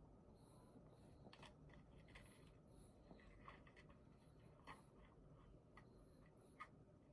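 Quiet typing on a computer keyboard: soft, irregular key clicks over faint room hiss, one sharper click near the end.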